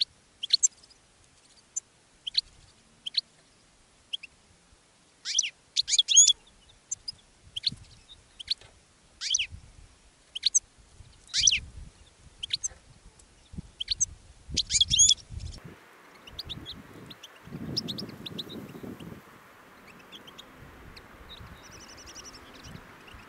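European goldfinches calling: a run of short, high chirping calls, some coming in quick clusters, that stops about two-thirds of the way through. After that there are only a few faint chirps over a steady hiss.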